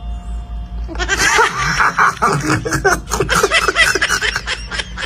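Loud, high-pitched laughter bursts out about a second in, bleating in tone. It breaks into a quick run of short, breathy 'ha' pulses, about five a second.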